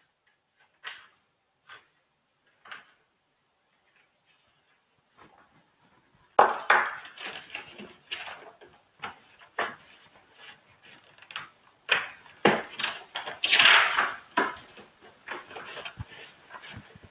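A few faint clicks, then from about six seconds in a busy run of sharp, irregular taps and knocks, with a louder rough scraping patch about two-thirds of the way through.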